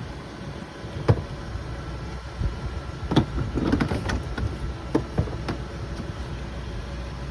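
Sharp clunks and knocks from gear being handled at an RV's exterior storage compartment, about six of them, the loudest about a second in and a cluster around three to five seconds in. A steady low rumble continues underneath.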